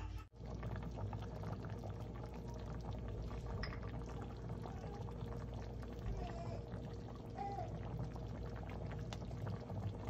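Curry simmering in a pot, thick liquid bubbling with many small irregular pops over a steady low hum.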